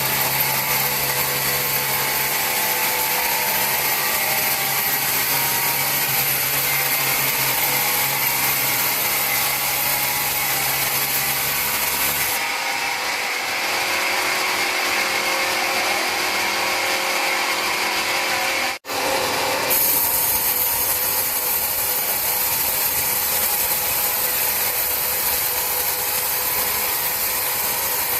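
A power tool working wood, a steady dense grinding-whirring noise; a low hum under it stops about twelve seconds in, and the sound cuts out for an instant about two-thirds of the way through.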